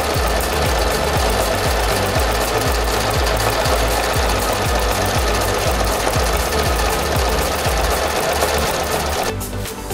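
Singer 588 portable electric sewing machine running steadily as it sews a zigzag stitch, stopping near the end. Background music with a steady beat runs underneath.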